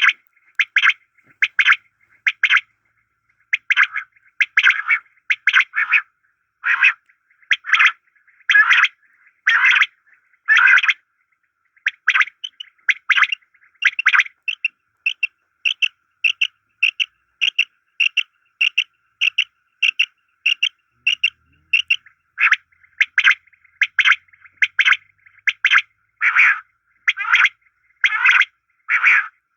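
Common quail calling: short chirping notes repeated about once a second, then a quicker run of shorter notes for about ten seconds before slowing again.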